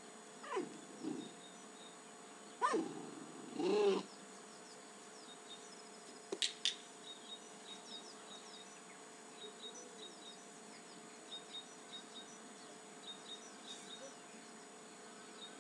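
A puppy gives four short whines, each falling in pitch, in the first four seconds. About six and a half seconds in, a training clicker clicks, a sharp double click marking the behaviour before the treat. Small birds chirp faintly and regularly after that.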